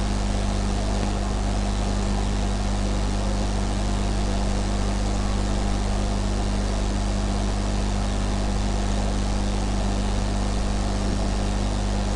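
Steady low electrical hum with a constant hiss, unchanging throughout.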